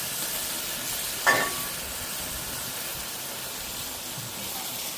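Pot of curry sheep meat sizzling with a steady frying hiss, with one brief louder sound a little over a second in.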